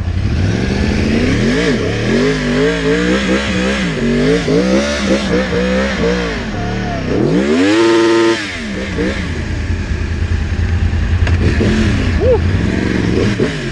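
Sport motorcycle engine revving up and down repeatedly as it accelerates and shifts, with one long rise and fall in pitch about halfway through, settling to a lower, steadier run near the end, under wind noise.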